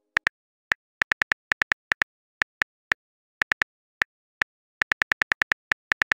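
Phone-keyboard typing sound effect: short, identical clicks in irregular runs of several a second with brief pauses, as a text message is typed.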